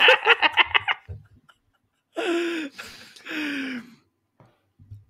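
Men laughing: a quick run of short laughs in the first second, then after a pause two drawn-out laughs falling in pitch.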